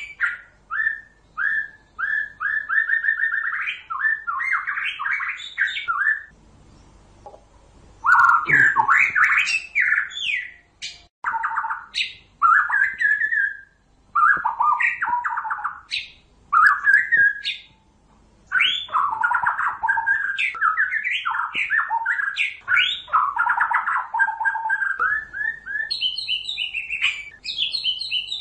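White-rumped shama singing: varied phrases of quick whistled notes gliding up and down, with short pauses between phrases and a longer lull about a quarter of the way in.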